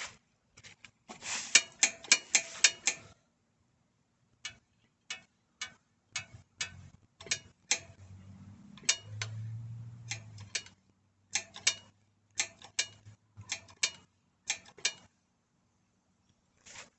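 Sharp metallic clicks from work on a bicycle's front hand brake: a quick run of clicks about a second in, then single clicks every half second or so. A faint low hum comes and goes in the middle.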